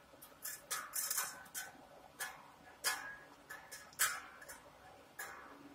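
The low E string of a Squier electric guitar plucked lightly over and over, about a dozen short plucks each with a brief ring, while it is brought back up to its correct pitch.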